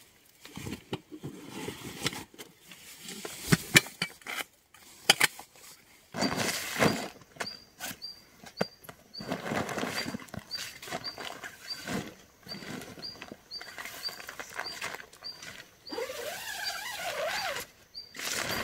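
Nylon tent fabric and a canvas backpack rustling and gear knocking as they are handled, in irregular bursts. From about seven seconds in, a small bird chirps repeatedly in the background, short high notes a couple of times a second.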